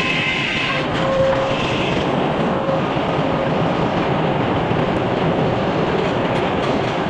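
Sawmill machinery running steadily, a dense continuous mechanical noise, as the mill saws an oak log.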